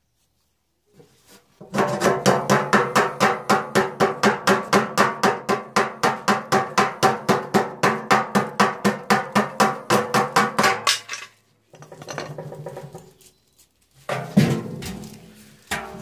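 Hammer rapidly tapping the centre shaft hub of a metal tumble dryer drum, about five blows a second for some nine seconds, the drum ringing with each blow. Near the end come some clattering and one loud clang of the drum.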